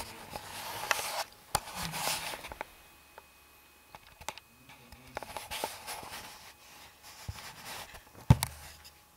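Soft rustling and shuffling of people moving in a quiet dark room, with a few small clicks and one sharp knock about eight seconds in.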